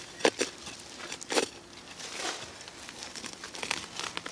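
Short-handled spade digging into forest soil: several separate scrapes and chops of the blade into earth and leaf litter, spaced irregularly.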